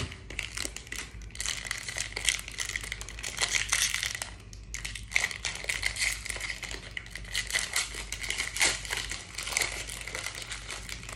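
Foil wrapper of a Pokémon card booster pack crinkling in quick, irregular rustles as it is handled and opened, with a short pause about four seconds in.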